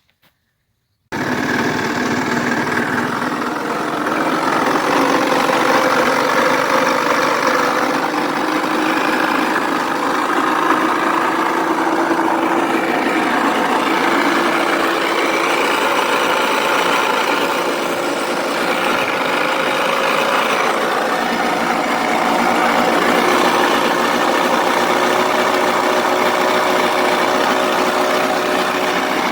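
Four-stroke 80 cc scooter engine running, starting about a second in, with a sound that is not right. The mechanic calls it a coarse rustle and hum and takes it, with high probability, for worn main crankshaft bearings.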